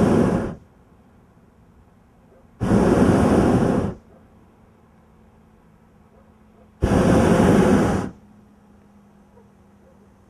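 Hot air balloon's propane burner firing in short blasts of about a second each, three or four seconds apart: a loud rushing noise that starts and stops sharply.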